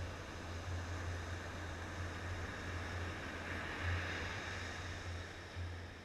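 Steady wind rumble on the camera's microphone over the hiss of surf, swelling a little about four seconds in. No bird calls are heard.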